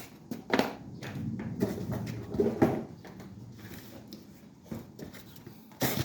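Irregular knocks and clatter of hard objects being handled, the loudest pair of knocks near the end.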